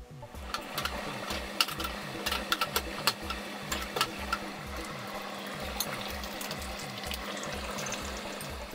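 Cauliflower steak and courgette slices frying in coconut oil, a steady sizzle with sharp crackles and clicks, the loudest clustered in the first few seconds. A steady low hum and background music with a regular beat run underneath.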